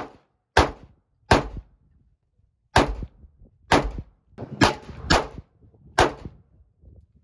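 Glock 19 Gen 4 9mm pistol firing a string of about eight shots at an uneven pace, some under a second apart, each a sharp crack with a short ring-out.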